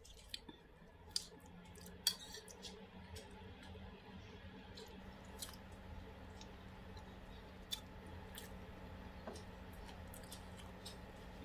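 Quiet eating sounds: chewing with scattered small clicks and taps, over a faint steady low hum.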